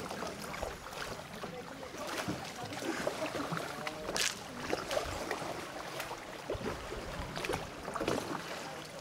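Double-bladed kayak paddles dipping and splashing in slow river water in irregular strokes, with one sharper splash about four seconds in.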